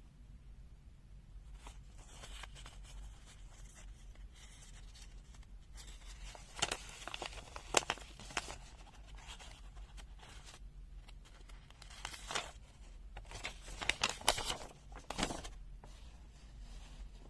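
Paper rustling as the pages of a printed user manual are handled and turned, with a few sharper crinkles and snaps, loudest in two clusters around the middle and near the end.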